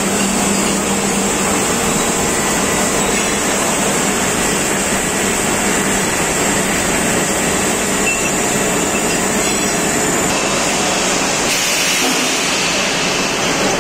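CNC vertical milling machine cutting metal under flood coolant: a steady, dense machining noise of spindle, cutter and coolant spray, with a steady high whine through it. The spindle is run by a VFD fitted in place of its original servo drive, and the machine is cutting normally.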